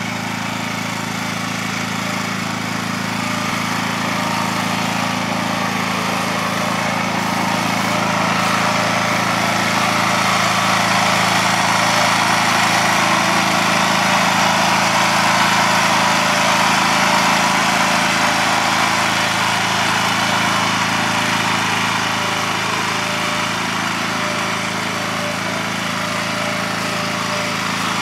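The small gasoline engine of a walk-behind wire-burying machine running steadily under load as it cuts underground dog-fence wire into the lawn. A constant engine drone with a harsh noise over it, swelling slightly in the middle.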